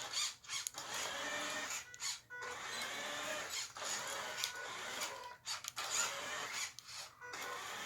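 Small DC drive motors and plastic gears of a 3D-printed RC car whirring in spurts, starting and stopping about five times as the car is driven back and forth.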